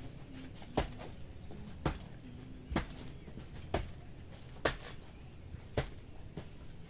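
A blade, likely a bolo or machete, chopping into a banana plant's soft trunk in steady, even strokes, about one a second.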